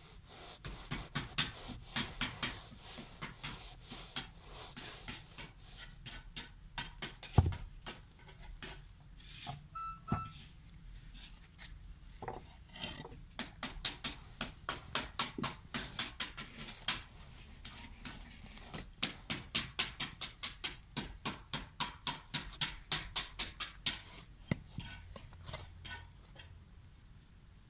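Quick runs of sharp taps, about two to three a second, as moulding sand and the pattern in a sand-casting flask are rapped and packed by hand and with wooden and metal rods, with one louder knock about a quarter of the way in.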